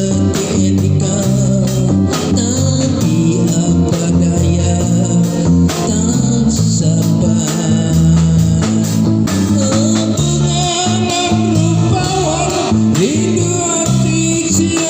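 Recorded music with guitar, bass and singing, played loud through a sound system.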